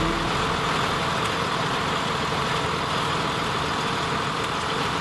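Bus engine idling steadily.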